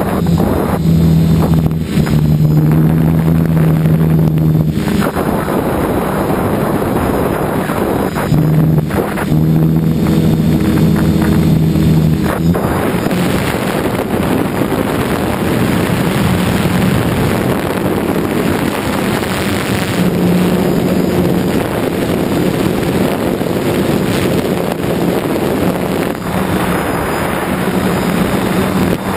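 DJI F550 hexacopter's electric motors and propellers humming steadily, heard from a camera on the frame, with wind rushing on the microphone. The hum shifts up and down in pitch a few times in the first half and is steadier after that.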